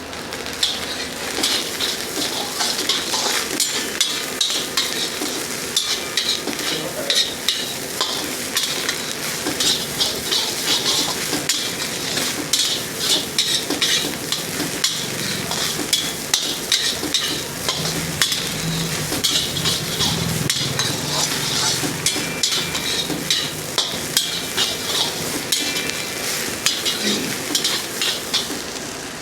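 Food sizzling in a hot wok while a metal ladle or spatula stirs and tosses it, striking and scraping the wok many times, with irregular sharp clinks over a steady frying hiss.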